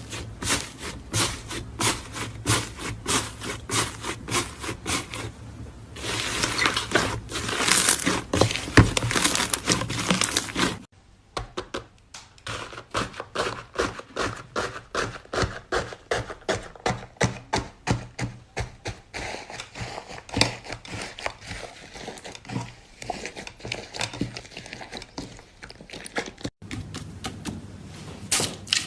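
Slime being squished and played with, making a run of sharp wet clicks and pops several times a second, thickening into dense crackling about six seconds in. The sound breaks off abruptly twice, about eleven and about twenty-six seconds in.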